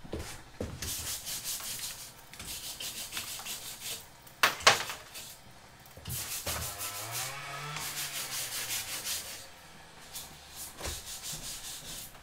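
Rapid back-and-forth strokes of a hand tool rubbing against a wall, in two runs of a few seconds each, with one sharp knock between them.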